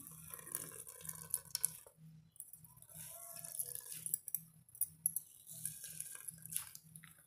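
Starchy water trickling and dripping into a bowl as grated potato is wrung out by hand in a cotton cloth, faint and irregular.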